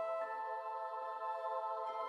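Soft, slow ambient background music: sustained synth-like tones that change chords about every second or two.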